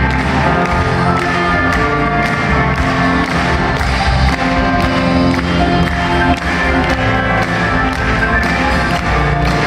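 Live rock band playing through a PA, with a steady drumbeat under keyboards and electric guitars, heard from the audience.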